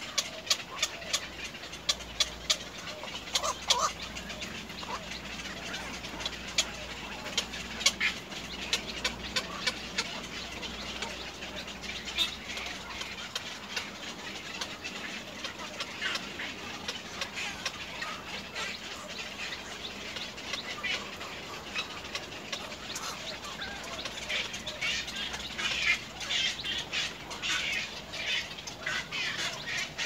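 Birds calling around the nest: a scatter of short sharp chirps and clicks, growing busier near the end. A low rumble runs under the first half.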